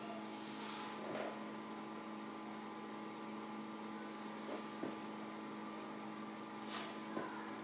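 Magnetic stirrer running with a steady electric hum while a spinning top turns on its plate, with a few faint ticks.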